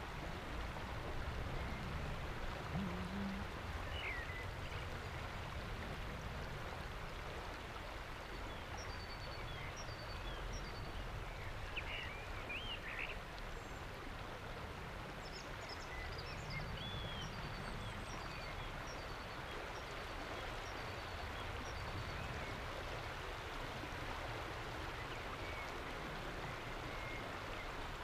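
The river Lech running past and over a shallow rock shelf: a steady rush of flowing water. A few faint, high chirps of small birds come through it now and then.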